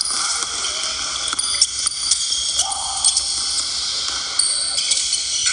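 Basketball game in a gym heard as a steady hissing din, with scattered sharp knocks.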